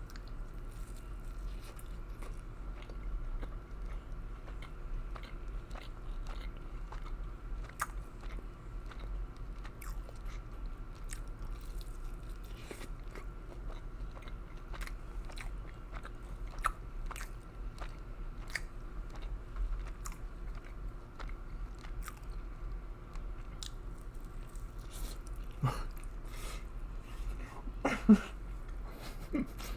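Close-miked chewing and crunching of fried chicken, with many small wet mouth clicks and smacks and a couple of louder mouth sounds near the end. A faint steady electrical hum runs underneath.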